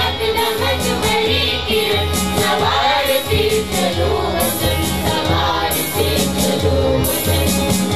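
A children's choir singing together into microphones over amplified music with a steady beat.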